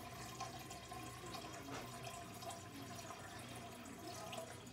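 Kitchen faucet running water into a stainless steel saucepan, filling it; a faint, steady splashing.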